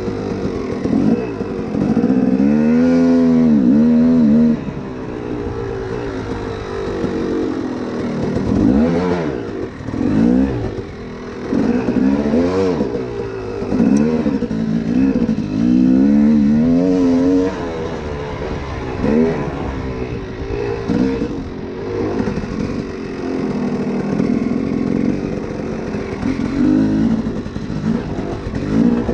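A 250cc two-stroke dirt bike engine under way, its pitch climbing and dropping again and again as the throttle is opened and closed.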